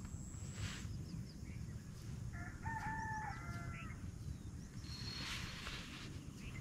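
A rooster crowing once, a pitched call of about a second and a half starting about two seconds in, over a steady low rumble.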